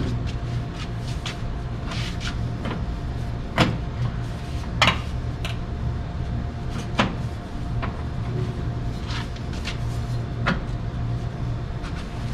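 A handful of sharp clicks and knocks as hands handle the casing of an LG split air conditioner's outdoor unit, over a steady low machine hum with a faint steady high tone.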